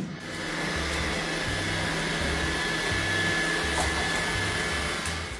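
Robot vacuum cleaner running: a steady whirring hiss with a thin high whine. A low pulsing beat sits underneath.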